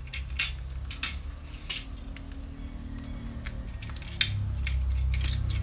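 Scattered sharp clicks and scrapes of electrical wire and metal tools being handled while the wire is fished through. Three clicks come about a second apart in the first two seconds, then a quick cluster near the end.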